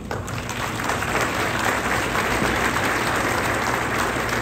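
Audience applauding, building up over the first second and then keeping on steadily as a dense patter of many hands clapping.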